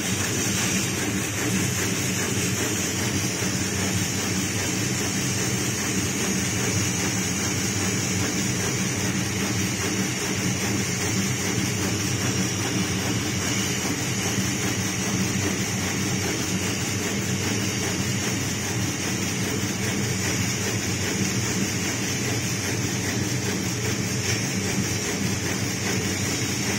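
Water-cooled diamond wire saw cutting a marble block: a steady machine hum and drone with a constant high hiss from the running wire and its water spray.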